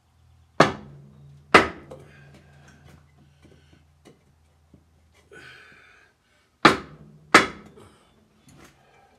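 Hammer blows driven through a wooden block against a Caterpillar Sixty's cast-iron water manifold, knocking it sideways to line it up with the cylinder ports: two pairs of sharp knocks, each pair about a second apart, each knock leaving a short ringing tone.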